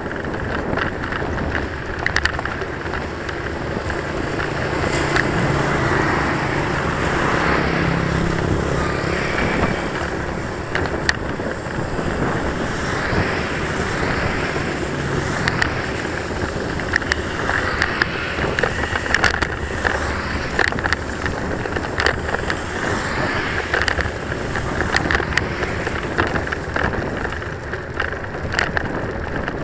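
Wind rushing over the microphone of a moving bicycle, with tyre noise and frequent sharp clicks and rattles as the bike rolls over the bridge walkway. A motor vehicle hums past on the road through the first half.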